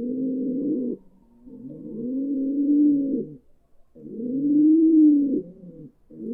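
Pigeons cooing: a string of low coos, each rising and then falling in pitch, separated by short pauses. One coo trails off about a second in, two full coos follow, and another begins near the end.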